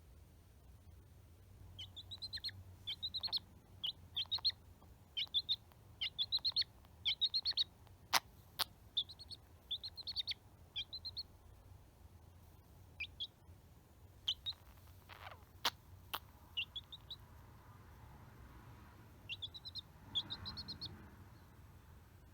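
Young domestic chick peeping: short high chirps in quick runs of several notes, with pauses between the runs. A few sharp clicks stand out around the middle.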